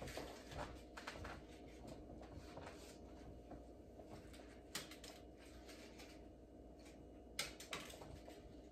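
A few faint, short taps of crumpled paper balls being tossed and landing on a wooden countertop, over a quiet room hum.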